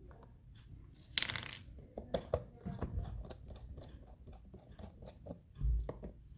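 Small clicks, taps and scrapes of small plastic and metal parts being handled while a microscope is taken apart, with a short rustling noise about a second in and a dull thump near the end.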